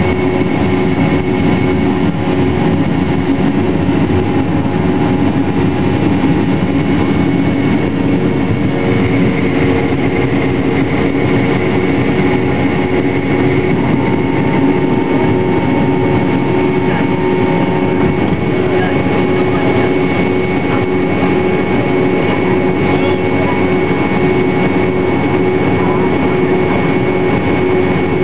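Boeing 717 cabin noise during take-off and initial climb: the jet's two rear-mounted Rolls-Royce BR715 turbofans at take-off power, a loud steady rush with a steady whine, heard from a seat over the wing. A higher whine grows stronger about nine seconds in.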